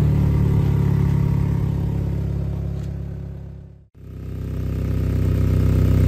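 Honda Insight hybrid's engine running steadily with a loud exhaust note from a leak in the exhaust system. The sound fades out about four seconds in and fades back up.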